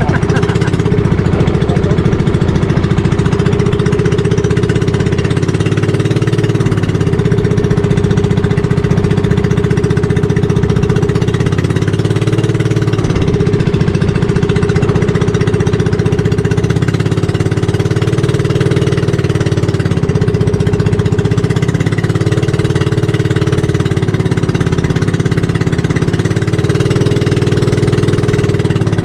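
The small inboard engine of a motorized outrigger boat running steadily under way, loud and close, with a rapid, even beat and slight rises and falls in pitch.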